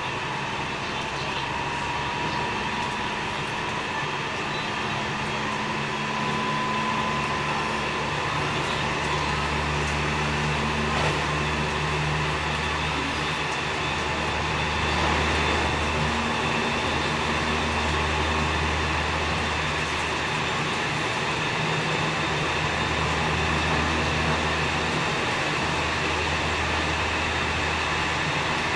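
Inside a JR West 207 series 1000 subseries electric train with Toshiba GTO inverters, running along the line: a steady rumble of wheels on rail with a faint high whine, and a low drone that comes and goes every few seconds.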